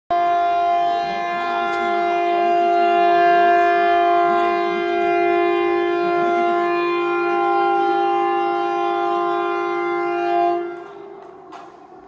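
Air raid siren sounding one steady, loud tone during a public siren test. The tone holds its pitch, then stops about ten and a half seconds in and fades out within half a second.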